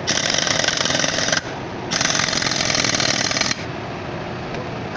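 A power tool running in two bursts, each about one and a half seconds long, with a short pause between them.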